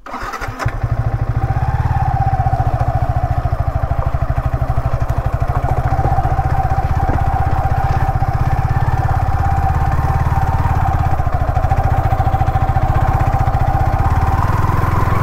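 Motorcycle engine, a Yamaha R15 V3's single-cylinder four-stroke, running steadily at an even speed. It comes in abruptly right at the start with a rapid low pulsing and a steady tone above it.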